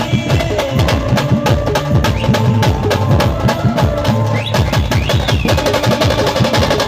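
Live band music without singing: heavy, fast drumming with a held melody line over it. Near the end the drumming speeds up into a rapid roll.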